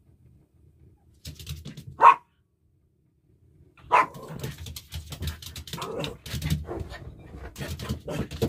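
Small dogs, a Maltese mother and her Morkie puppies, barking and yipping at play: a sharp bark about two seconds in, another about four seconds in, then a steady run of short barks and yips.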